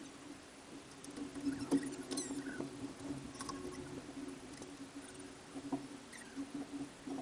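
A steady low hum with scattered faint clicks and scrapes, busiest in the first few seconds, muffled through a waterproof camera case.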